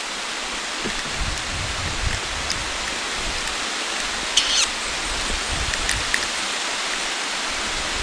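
Steady rain falling on foliage, a continuous even hiss, with a brief higher sound about four and a half seconds in.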